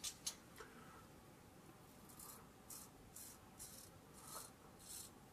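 Faint short scraping strokes of a Ming Shi 2000S adjustable double-edge safety razor cutting lathered stubble on the chin and neck. The strokes come about two a second, starting about two seconds in.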